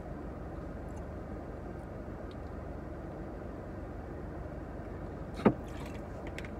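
Steady low hum inside a car's cabin, as from an idling car, with one sharp click about five and a half seconds in.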